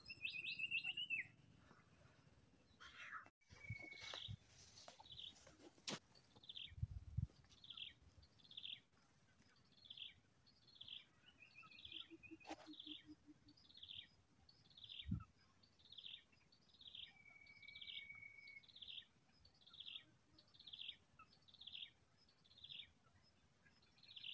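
A bird calling over and over in the background: a short falling chirp about three times every two seconds, with now and then a short held whistle. A thin, steady high tone sits behind it, and there are a couple of soft low thumps.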